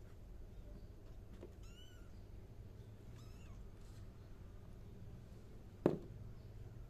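Tiny kittens mewing faintly a couple of times with thin, wavering high cries, and one sharp knock about six seconds in.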